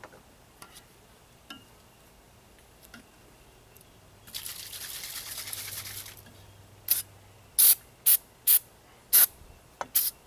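Aerosol can of white lithium grease spraying: one steady hiss of about two seconds, then six short, loud squirts, greasing the water pump's impeller housing.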